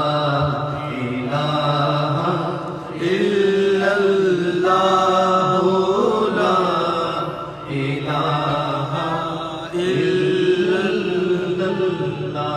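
A man's voice chanting devotional verse (naat) into a microphone in long, drawn-out melodic phrases, with short breaks between them.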